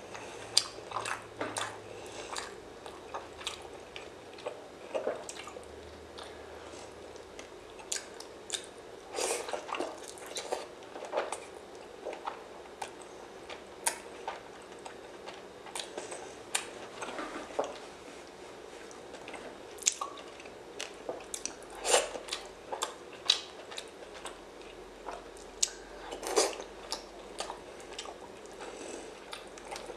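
A person eating seafood close to the microphone: chewing and biting, with many irregular sharp clicks and crackles.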